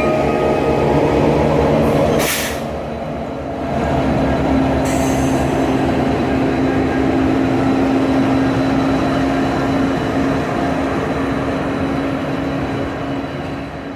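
Train passing close by: the horn chord ends about two seconds in, followed by a sharp crack and then the steady rumble of the cars rolling past with a held tone. The sound fades away near the end.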